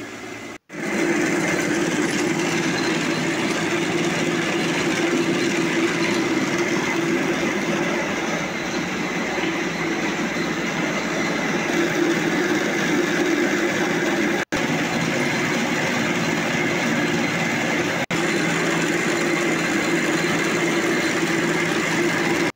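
Small rice mill hulling paddy, running with a loud, steady mechanical drone while milled rice pours from its chute into a sack.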